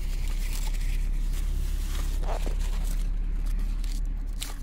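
Steady low hum inside a car cabin, with scattered rustling and handling noise from a hand moving right at the phone's microphone.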